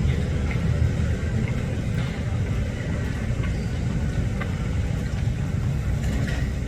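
Steady low rumble of aircraft engines, with a few faint short ticks above it.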